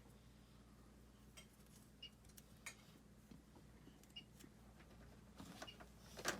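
Near silence with a steady low hum, broken by scattered faint clicks and taps of small plastic toy pieces being handled, and a short louder sound that falls in pitch right at the end.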